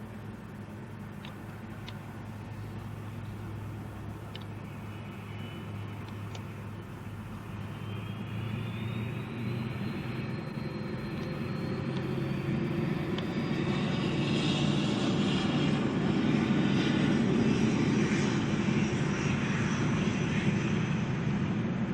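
A train approaching and running past on the line, growing steadily louder through the first half and staying loud, over a steady low hum, with a rising whine about a third of the way in.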